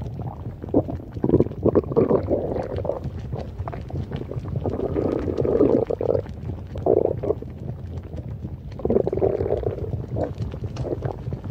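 Stomach noises: a steady low rumble with louder churning sounds that come and go every second or two.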